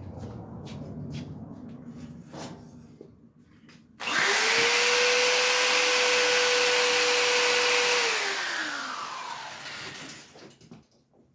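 Handheld electric power tool started abruptly. It spins up to a steady whine, runs for about four seconds, then is switched off and winds down with a falling pitch. Before it comes light scraping and handling noise.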